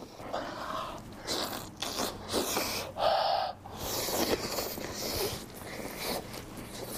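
Close-miked eating: a man chewing and smacking on tender boiled chicken leg meat, with breaths through the nose between mouthfuls.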